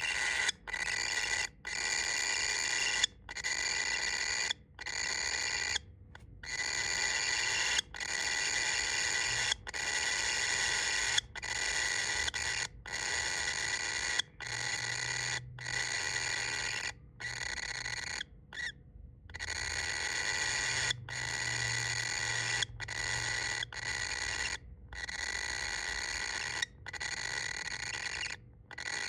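Baby bird's snoring call: a long, steady-pitched call repeated about every second and a half. Each call grows louder, then cuts off suddenly.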